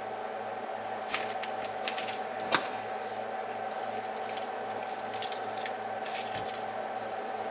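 A few small clicks and rustles of hands handling parts and paper on a workbench, the sharpest about two and a half seconds in, over a steady background hum.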